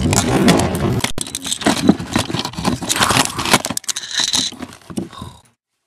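A man and his running handheld camera falling into a boulder pile: a jumble of knocks, scrapes and clattering against rock, loudest for the first three and a half seconds, then thinning to a few scattered knocks before cutting off to silence.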